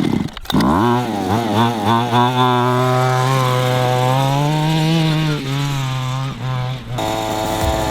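Small two-stroke gas engine of a 1/5-scale Redcat Rampage XT RC truck catching and quickly running up in pitch, then running steadily with its revs wavering slowly up and down. The engine is still out of tune. About seven seconds in the sound changes abruptly.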